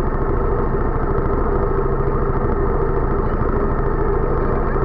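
Go-kart's small engine idling steadily, picked up by a camera mounted on the kart.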